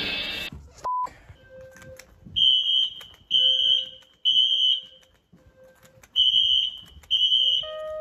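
Fire alarm horn strobe sounding the temporal-3 evacuation pattern: three short, high, steady horn blasts, a pause, then three more.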